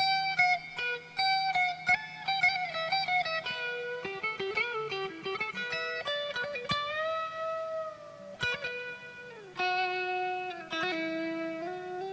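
Harley Benton SC-500 single-cut electric guitar played through the Overloud TH3 amp simulator: a single-note melodic lead line of held notes with string bends and slides.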